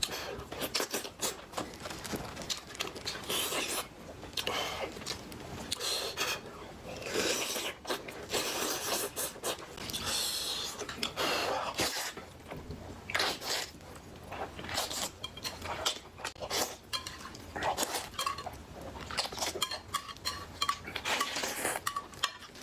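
Eating sounds: cutlery clinking and scraping against a dish, mixed with chewing. Many short clicks and scrapes follow each other throughout.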